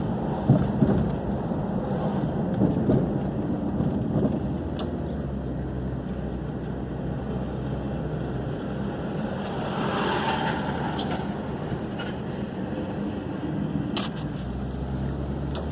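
Car driving on a paved street, heard from inside the cabin: a steady rumble of engine and tyre noise, with a few louder knocks over bumps in the first few seconds.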